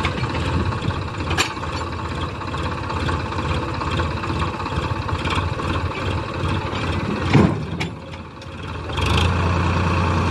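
Diesel tractor engine running steadily with a loaded sand trolley hitched on, with a short thump about seven seconds in. Near the end the engine note briefly drops, then comes back louder and steadier.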